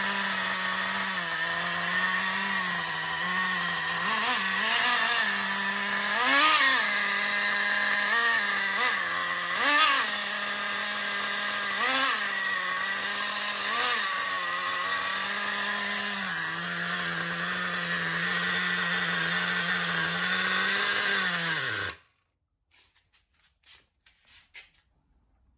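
Traxxas Revo 3.3's TRX 3.3 two-stroke nitro engine running with the truck held off the ground, revved in short blips several times, then slowing and stopping about 22 seconds in. A few faint clicks follow.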